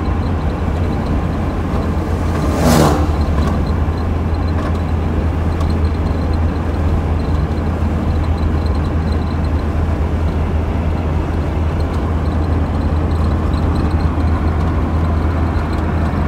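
Steady road and engine drone heard from inside a car cruising on a highway, with a brief loud rush of noise about three seconds in.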